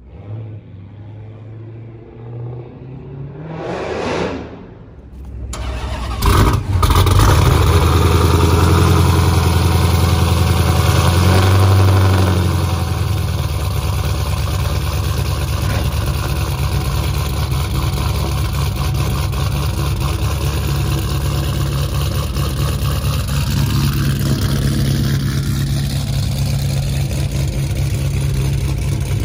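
A car passes about four seconds in. About six seconds in, a supercharged Dodge Charger's V8 starts up and runs at a loud, high idle, then settles to a lower, steady idle about twelve seconds in.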